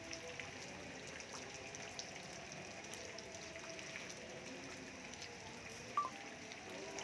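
Steady rain falling, with the patter of drops on wet ground and surfaces. There is a single sharp click about six seconds in.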